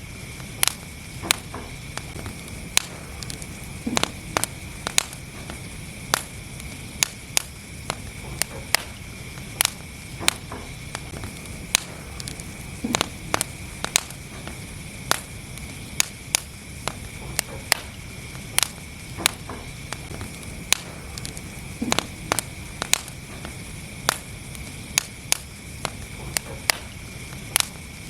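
Wood fire burning in a fireplace: irregular sharp crackles and pops, about two a second, over the steady low rush of the flames.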